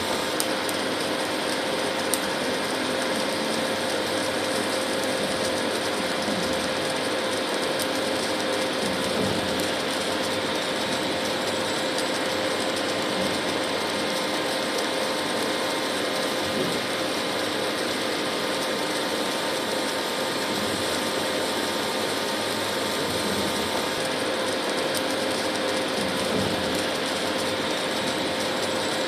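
Induction cooktop running: a steady electrical hum with a constant pitched tone over an even whir of noise, with a single small click about two seconds in.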